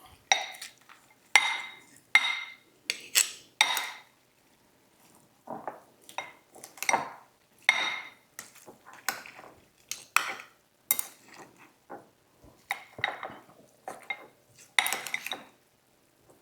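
Eating utensils clinking and scraping against a bowl as noodles are stirred and mixed, in irregular strokes about once or twice a second with short pauses.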